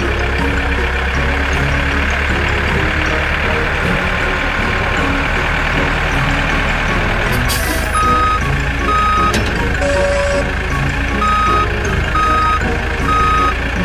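Cartoon tractor engine sound effect running steadily, with a short hiss about halfway through. Then a vehicle reversing alarm beeps about once a second as the tractor backs up to the trailer.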